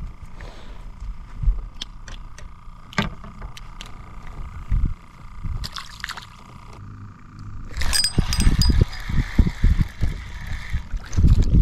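Clicks and taps of tackle being handled, and a small crappie dropped back into the lake with a light splash about halfway through. About eight seconds in, a hiss runs for around three seconds as line pays off a spinning reel, then stops.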